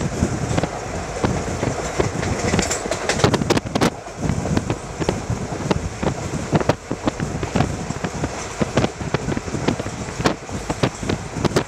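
Indian Railways train running at speed, heard from on board: a steady rumble with wheels clattering and clicking irregularly over the rails.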